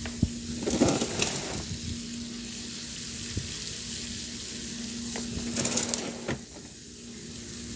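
Walking toy robot's small motor and gears running with a faint steady hum under a hiss. It clatters about a second in and again near the end, and the hum stops shortly before the end.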